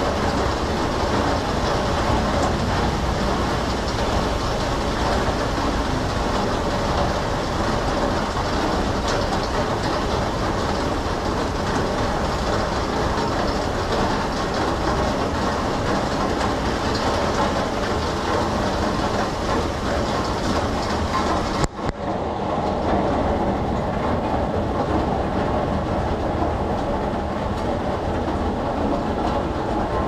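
Steady heavy rain, a dense even hiss. About two-thirds of the way through it breaks off for an instant, and after that the highest part of the hiss is softer.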